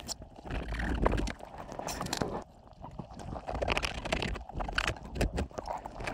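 Underwater, a knife sawing and snapping through nylon fishing net, heard as irregular clicks and scrapes over a low rumble of water moving.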